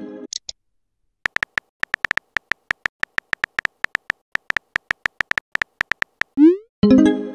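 Phone texting-app sound effects: a message chime dies away at the start, then a run of short keyboard tap clicks, about five or six a second, as a reply is typed letter by letter. Near the end a rising swoosh and a chime sound as the new message pops up in the chat.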